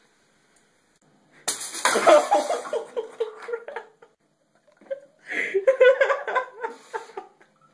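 A sudden sharp smack about one and a half seconds in, followed by people laughing and exclaiming.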